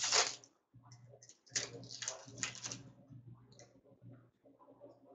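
Foil wrapper of a trading-card pack crinkling as it is torn open, in a few crackly bursts, followed by small clicks and rustles of the cards being handled.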